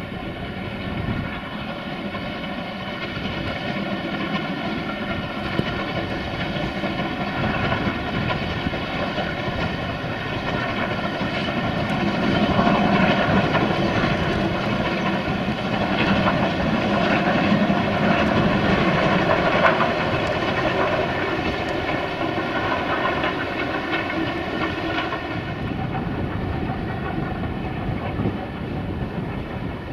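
Steam locomotive hauling a passenger train, its exhaust beats and the coaches running continuously. It grows louder about halfway through as the train passes closest, then fades somewhat.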